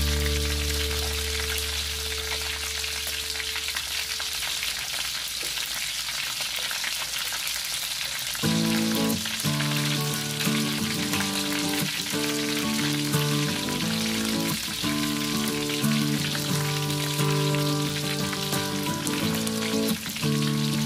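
A steady crackling hiss throughout, under background music: a held chord fades out over the first few seconds, and a line of changing notes comes in about eight seconds in.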